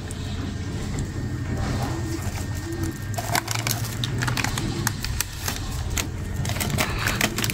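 Doves cooing faintly in short low notes over a steady low hum, followed from about three seconds in by a run of sharp clicks and crackles.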